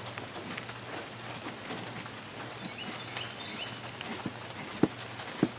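Condor Pack Golok machete blade shaving curls down a wooden stick to make a feather stick, in light scraping strokes. Two sharp knocks come near the end, about half a second apart.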